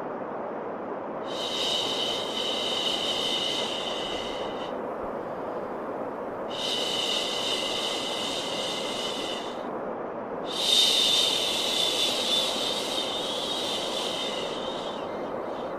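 Drawn-out 'shhh' shushing sounds, three in a row, each lasting about three seconds with short gaps, over a steady bed of white noise.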